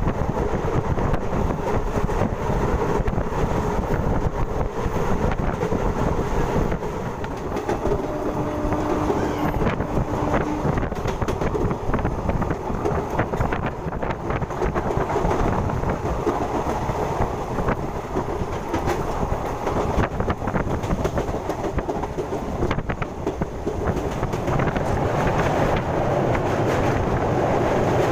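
Bhagirathi Express passenger coach running at speed: a steady rumble of wheels on rail, with frequent irregular clicks and knocks from the track.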